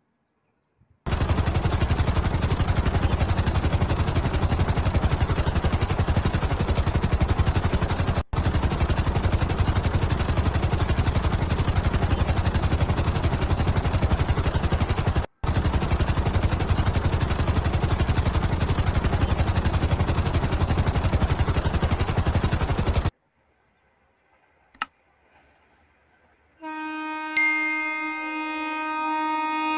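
Helicopter rotor noise, a fast steady chopping that drops out twice for a moment and cuts off suddenly about 23 seconds in. About three seconds later an electric locomotive's horn sounds in one long steady blast.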